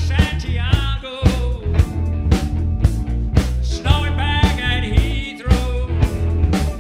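Rock band playing live, with electric guitars, bass guitar and a steady drum beat. A man sings lead in the first couple of seconds and again about four seconds in.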